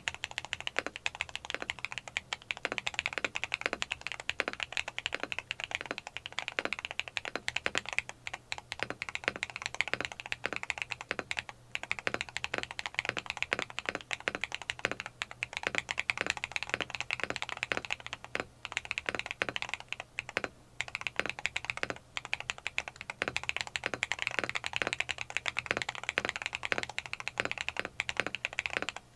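Fast, continuous typing on a mechanical keyboard (Neo 70) fitted with lightly lubed KTT Teresa long-pole switches. The keystrokes sound loud and clacky, with a few brief pauses in the typing.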